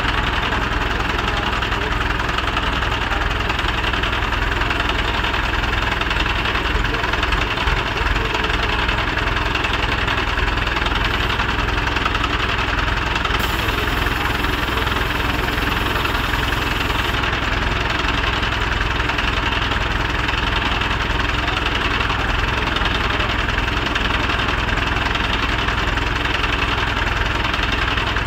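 Mobile crane's diesel engine running steadily with a clattering idle while the crane holds a load on its hook.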